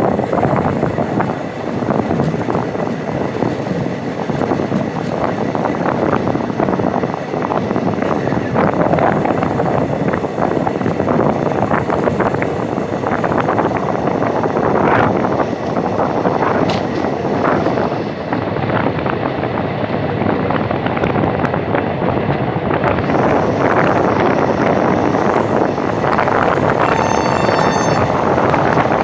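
Indian Railways train running at speed: a steady rumble and rattle with wind rushing over the microphone. A brief high-pitched tone sounds near the end.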